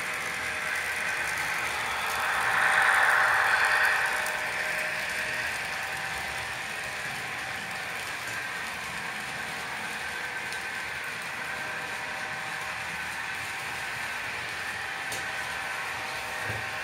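Model railway trains running on the track: the electric motors whir and the wheels rattle over the rails. The sound swells louder about two to four seconds in, then holds steady.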